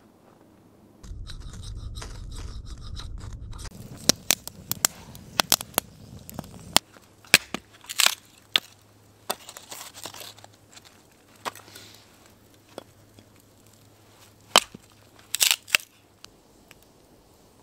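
A low rumble for a few seconds, then a long run of irregular, sharp snaps and cracks, some of them loud, with a few quick double cracks near the end.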